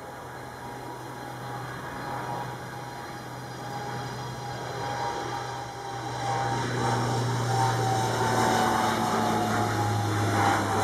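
BAe Jetstream twin-turboprop airliner on approach to land, its propellers and Garrett TPE331 turboprop engines droning with a whine over a steady low hum. The sound grows steadily louder as the aircraft comes close, and the whine drops slightly in pitch over the last few seconds.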